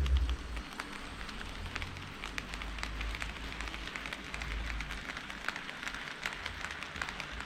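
HO-scale model train rolling along sectional track: a dense, irregular patter of small wheel and rail-joint clicks, with a low rumble on and off.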